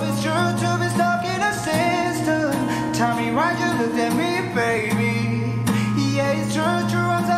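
Male singer singing a slow melody over acoustic guitar, with a low note held underneath that drops out briefly twice.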